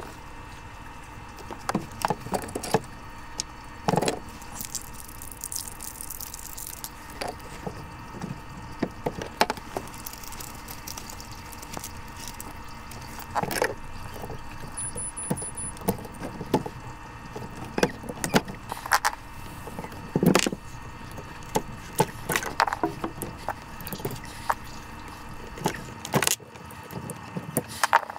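Irregular clicks, knocks and small rattles of hands working inside an under-sink cabinet, handling the automatic kitchen faucet's battery pack, which takes four AA batteries, over a steady low background hiss.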